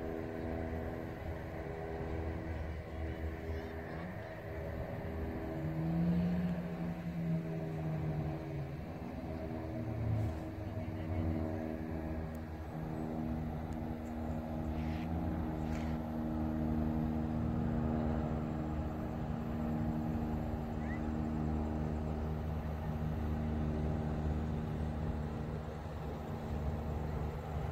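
Steady engine hum with several held tones over a low rumble, unchanging throughout.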